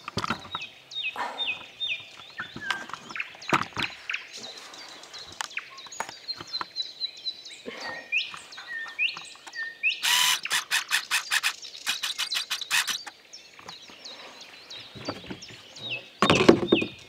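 Songbirds calling, many short chirps and falling whistles overlapping. About ten seconds in, a loud fast rattle of sharp clicks lasts some three seconds, and a short loud noise comes near the end.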